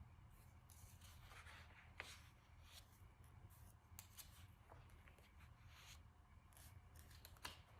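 Near silence: faint rustling of paper being handled, with a few light ticks about two, four and seven and a half seconds in, over a low steady hum.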